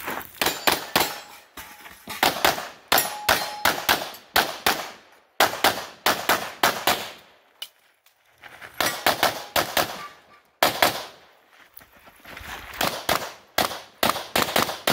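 Semi-automatic pistol fired in quick strings of closely spaced shots, with short pauses between the strings.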